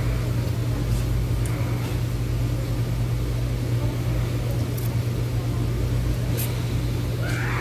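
Steady low mechanical hum, even in level, with a few faint ticks over it.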